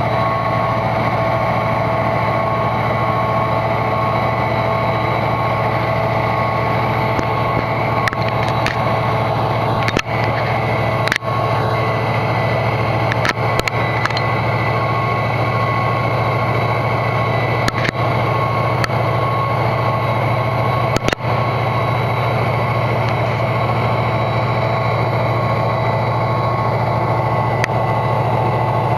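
EMD GP39-2 diesel-electric locomotive's turbocharged V12 engine working hard at high throttle, pulling a heavy freight train: a loud, steady drone. A few sharp clicks break in over the middle stretch.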